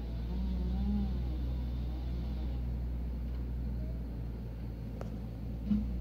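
Bucket truck's engine running steadily at a distance, giving a low, even hum that does not rise or fall, with one sharp click about five seconds in.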